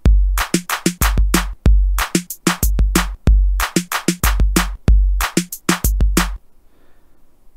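Programmed drum-machine beat from a web-browser drum machine: sampled kick, snare, closed hi-hat and clap in a repeating pattern at 95 bpm. It starts at once and stops abruptly about six and a half seconds in.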